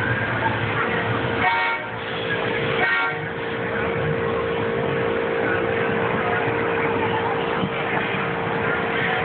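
Trackless kiddie train ride passing in a busy hall, its horn giving two short toots, about a second and a half in and again about three seconds in. Under it run a steady hum and crowd chatter.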